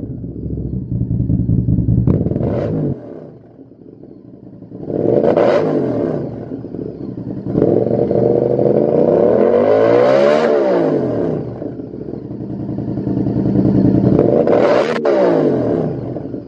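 Honda VTR1000's V-twin engine running and being revved through a Lextek CP8C carbon-fibre slip-on silencer. It drops back to idle about three seconds in, then gives a short rev, a longer rev that climbs and falls back in the middle, and another rev near the end.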